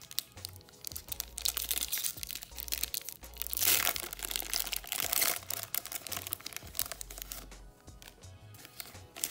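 Foil Pokémon booster-pack wrapper crinkling and being torn open, with the loudest rip about three and a half seconds in.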